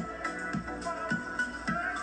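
Background music with a steady beat, about two strokes a second, under sustained melodic tones.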